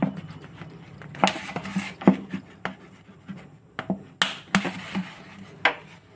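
Thin plastic bottle crackling and clicking as it is gripped and a heated kitchen knife scrapes and cuts into its neck: irregular sharp crackles, with a scratchy rasp about a second in.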